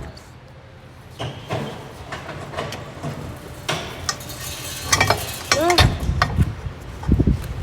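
Metal tools clanking, knocking and scraping against a steel wheel rim while the tire is being worked off. The knocks are irregular, with a cluster of louder ones about five to six seconds in and again near the end.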